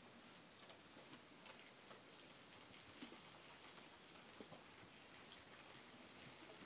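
Faint scattered crackles and rustles of straw and hay as sheep feed and shift about in it.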